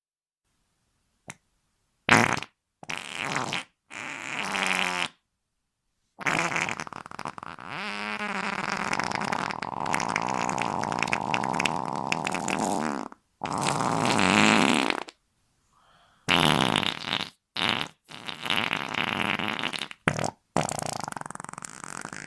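A series of fart sound effects: several short farts, then a long drawn-out one lasting about seven seconds with a wavering pitch, then a string of shorter farts near the end.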